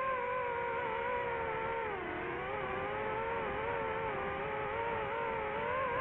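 Multirotor drone's motors and propellers whining steadily, the pitch wavering up and down as it flies, with a dip in pitch about two seconds in.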